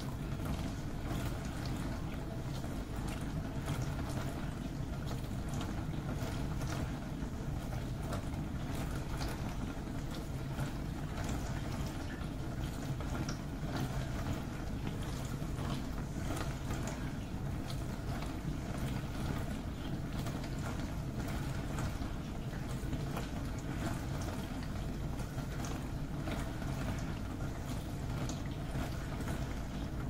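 Dishwasher in its wash cycle: water sprays and splashes continuously against the inside of the tub and racks over a steady low hum.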